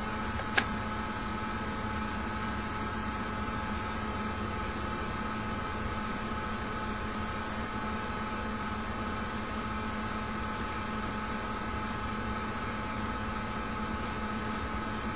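Steady room hum with a few even tones over a low hiss, and a single light click about half a second in.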